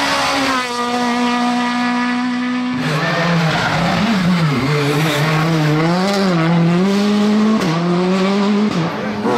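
Rally car engines under hard driving. First a Citroën C2 rally car's engine drops in pitch and then holds one steady pitch for about two seconds. After an abrupt cut about three seconds in, another rally car's engine rises and falls in pitch again and again through gear changes and throttle lifts.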